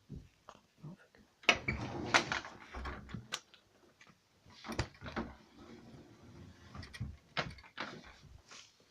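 Irregular knocks, clatter and rustling of boxes and objects being handled and moved in a cupboard, with the busiest stretch about a second and a half in and single sharp knocks near the end.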